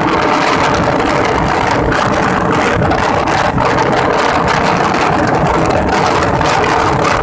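A vehicle's engine running steadily under a loud, even roar, with a constant low hum.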